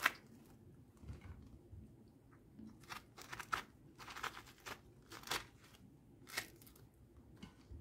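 Pomegranates being cut with a small knife and pulled apart by hand: faint, scattered scratchy sounds of the rind giving way, with a few sharper clicks.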